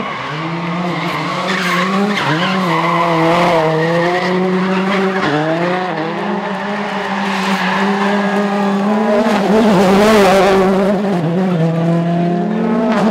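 World Rally Car's turbocharged four-cylinder engine held at high revs while the car spins donuts, the revs dipping and recovering a few times, with tyres skidding and squealing on tarmac, loudest a little past the middle.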